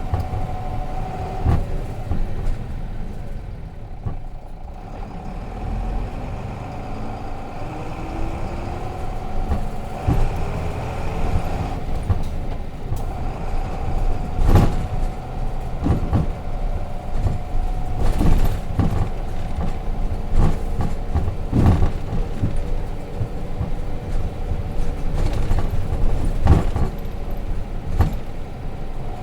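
Nissan Diesel RM city bus with its FE6 inline-six diesel running under way, heard from inside the cabin; the engine note drops and then climbs steadily as the bus accelerates, with a steady whine and frequent knocks and rattles from the body over the road.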